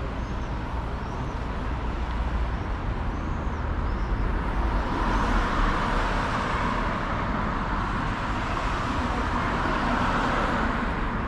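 City street traffic: a steady low rumble of road vehicles, swelling about halfway through as a vehicle passes close by and staying up until near the end.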